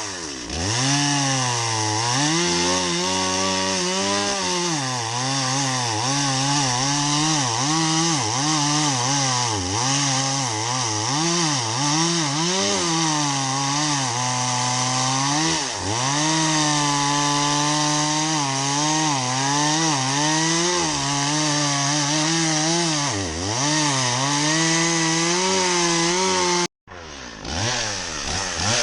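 Two-stroke chainsaw running hard and sawing into a tree trunk to cut the wedge-shaped notch that sets the direction of fall. Its engine pitch sags and recovers again and again as the bar bites into the wood, with a brief break near the end.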